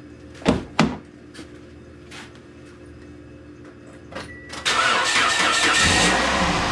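Two sharp clicks, then a few faint ones, before the 2008 Toyota Yaris engine cranks and catches about four and a half seconds in. It flares briefly, then settles into a steady idle. The exhaust has just had a leaking manifold flange replaced with a bolt-on split flange, and it runs without any audible exhaust leak.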